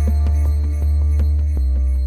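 Background music: an electronic track with a deep sustained bass, held notes and a steady beat; the bass note shifts near the end.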